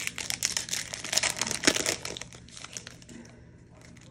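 Foil wrapper of a Panini Contenders football card retail pack crinkling as it is torn open by hand, most intense in the first two seconds, then quieter handling.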